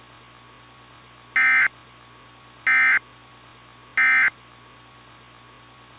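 Three short bursts of warbling digital data tone from a weather-radio alert (the Emergency Alert System's SAME code), each about a third of a second long and about a second apart. These are the end-of-message bursts that close the broadcast alert. They play over a faint, steady radio hum.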